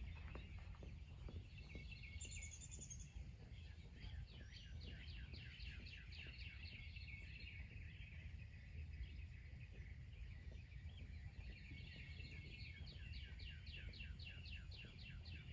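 Faint birdsong: a bird repeating short high chirps, about three a second, in two long runs, with a brief higher chirp about two seconds in. A low steady outdoor rumble lies under it.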